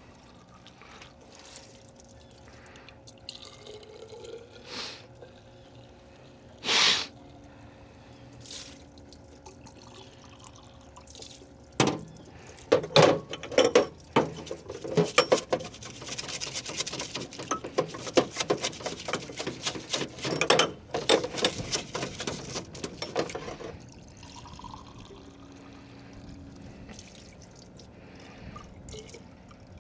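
Metal shock parts being washed by hand in a diesel-filled parts washer: liquid splashing, pouring and dripping with clinks of parts. Fairly quiet for the first dozen seconds apart from one sharp knock, then a busy stretch of splashing and clinking for about ten seconds before it settles again.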